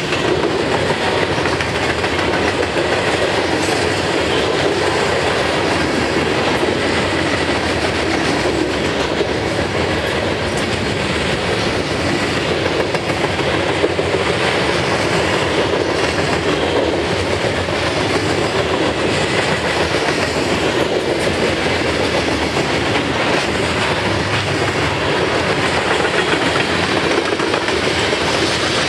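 Freight cars of a mixed freight train (tank cars, boxcars and covered hoppers) rolling past on steel rails: a steady, unbroken rolling noise of wheels on track with faint repeated clicks.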